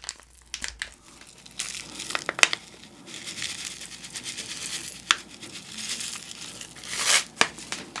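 Plastic furikake sachet crinkling as it is opened and shaken, with the dry seasoning flakes falling onto a bowl of rice as a steady high rustle. A few sharp crinkly clicks stand out.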